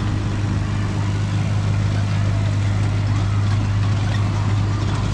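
A motor running steadily at constant speed: a low, unchanging hum over a rushing noise.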